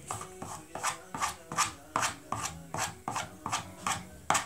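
A toddler's paintbrush tapping and dabbing rapidly on the painting surface on the table, in an uneven run of sharp taps, about four a second, with the loudest tap near the end.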